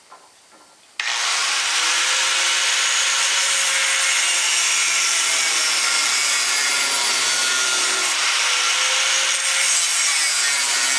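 Angle grinder cutting through steel hull plate, starting about a second in and then running steadily: the plate, tacked in place on the hull, is being cut back off.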